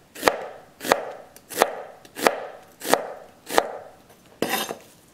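Chef's knife slicing a red onion on a plastic cutting board: six evenly spaced knocks of the blade on the board, about one and a half a second, each trailed by a short crisp rustle as the knife goes through the onion. Near the end comes a short rougher scraping noise.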